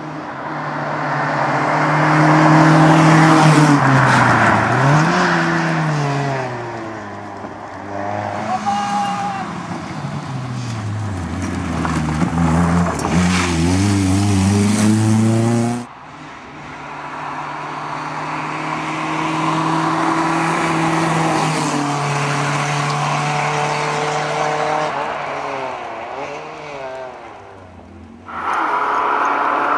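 Rally cars, among them an Opel Corsa A with a 1.2-litre engine, driven hard past the camera: the engine revs climb and drop again and again through gear changes and braking. The sound breaks off abruptly about halfway through and again near the end, where a new clip starts.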